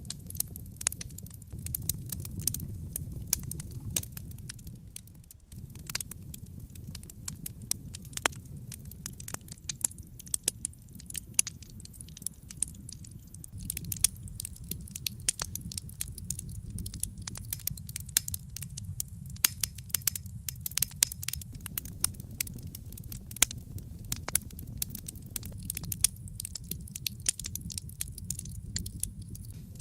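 Wood fire burning in a fireplace, crackling with frequent sharp pops and snaps over a steady low rumble of flame. The rumble briefly drops away about five seconds in, then returns.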